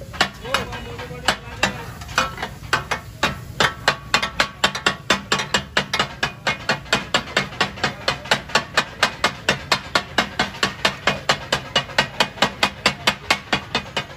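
Metal spatula striking and chopping fish katakat on a large flat iron griddle (tawa): a clatter of blade hits, a few irregular ones at first, then a fast, even rhythm of about four or five strikes a second.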